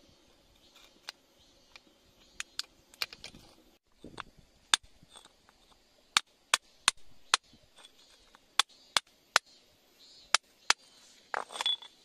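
Sharp, irregular taps of a metal tool chipping at wet rock around a crystal, several in quick succession in the middle. A faint low hum under the first few seconds stops about four seconds in, and near the end there is a brief, louder scraping rustle.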